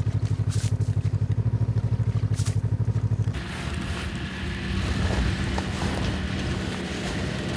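A low, rapidly pulsing mechanical drone for about three seconds, then a snowmobile engine running as the machine drives across the snow toward the listener, growing louder near the end.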